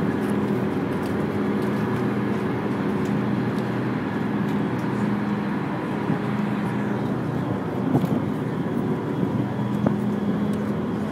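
A car ferry's engines running under way: a steady low drone with an even rush of noise over it.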